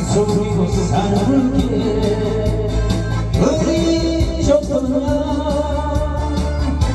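A man singing a Korean trot song into a microphone over a backing track with a steady beat, holding long notes with vibrato.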